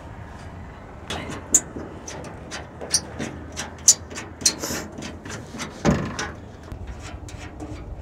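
Hand wrench clicking and clinking against galvanized steel fittings while bolts are turned: a string of sharp metallic clicks, with a heavier knock about six seconds in and quicker light ticks near the end.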